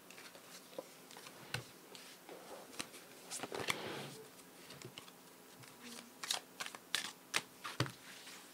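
Tarot cards being shuffled and handled: a denser stretch of card rustle about three to four seconds in, then a run of sharp clicks as cards are drawn and set down near the end.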